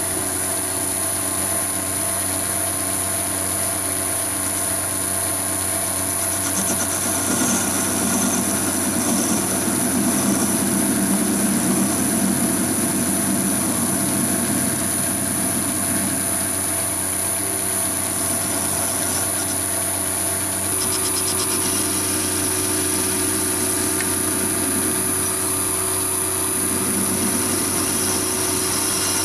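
Chinese mini lathe running with a steady motor whine while a carbide tool turns the head of a coach bolt. The cutting noise grows louder from about seven to thirteen seconds in and again near the end.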